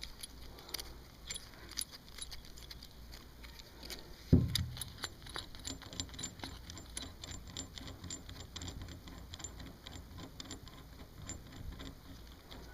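Small metal clinks and rattles of a trailer hitch ball, its nut and the steel ball mount being handled and fitted together, with one heavy thump about four seconds in.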